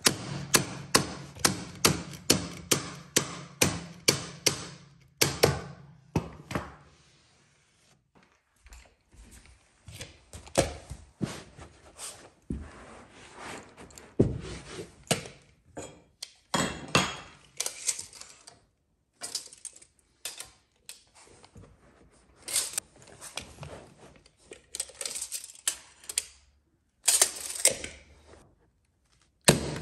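Electric staple gun firing staples into a carpet runner on wooden stairs: a quick run of shots about three a second, each with a short electric hum, for the first five seconds. After that come irregular single shots and knocks with brief pauses between them.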